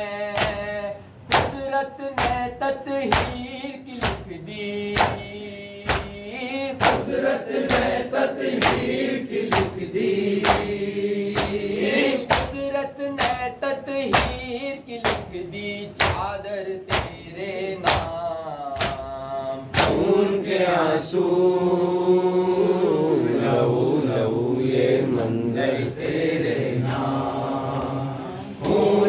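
A male reciter singing a Shia noha lament into a microphone, with a group of mourners striking their chests (matam) in a steady rhythm of hand slaps. About two-thirds of the way in the slapping stops and the voices carry on together in a sustained chant.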